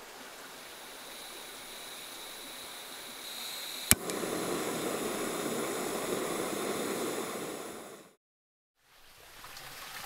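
Steady rushing noise that becomes louder after a single sharp click about four seconds in, then cuts out to silence for under a second near the end before coming back.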